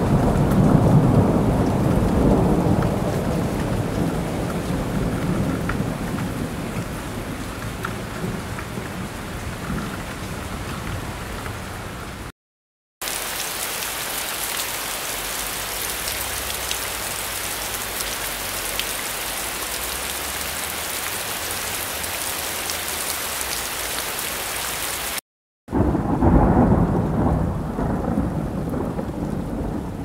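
Thunder rumbles over heavy rain and slowly fades over the first dozen seconds. After a brief silence comes steady, even heavy rain with no thunder. After another short break a loud new peal of thunder rumbles over rain and dies away.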